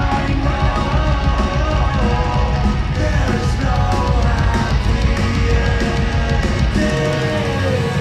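Loud live rock music from a concert PA: a heavy band playing with strong, driving bass and no clear sung words.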